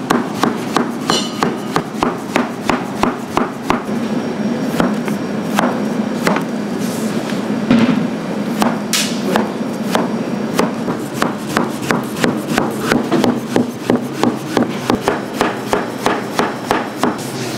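Knife chopping on a cutting board: a run of sharp knocks, about two to three a second, with a short irregular stretch in the middle, over a steady low hum.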